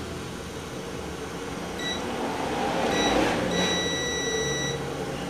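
Multimeter continuity beeper sounding as the probes touch points on a TV panel circuit board: two short beeps, then a steady beep lasting about a second. The beep signals continuity, a short circuit across the part being tested.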